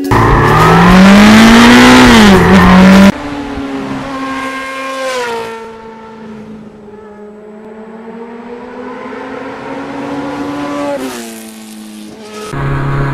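Motorcycle engines revving and accelerating in spliced riding clips: a loud rev that rises and falls and cuts off suddenly about three seconds in, then a quieter engine pulling through gear changes with its pitch dropping and climbing again, and another clip's steady engine note starting near the end.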